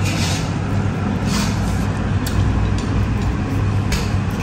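Vehicle noise: a steady low engine-and-road hum, with a few short hisses over it.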